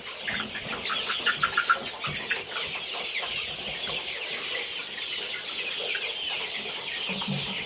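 A flock of seven-week-old chickens clucking and chirping all at once in a dense, steady chatter of many overlapping high calls.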